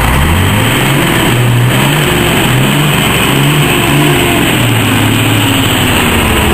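Heavy truck diesel engine accelerating hard, its pitch climbing and dropping back several times as it shifts up through the gears, over a constant loud rushing noise.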